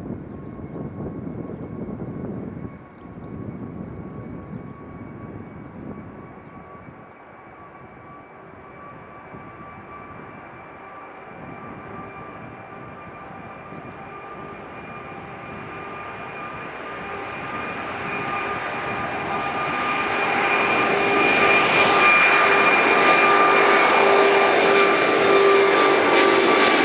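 Airbus A380's four Rolls-Royce Trent 900 turbofans at takeoff power as the jet climbs out toward and over the listener: a steady engine noise with high, whining fan tones, growing steadily louder and loudest over the last several seconds as it passes overhead.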